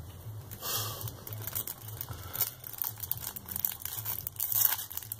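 Aluminium foil being crumpled and crinkled by hand: a run of irregular crackles.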